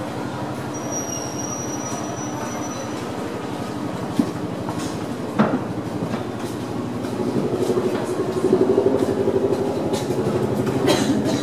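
Steady low mechanical drone, with two sharp knocks near the middle; it grows louder over the last few seconds.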